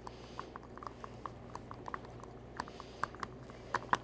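Light, irregular clicks and taps, several a second, with a couple of sharper ones near the end, from small objects being handled at a worktable, over a faint steady room hum.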